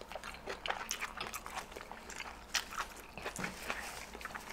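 Close-up eating sounds of people chewing sausages in buns: many small wet mouth clicks and smacks, with a bite into a sausage near the end.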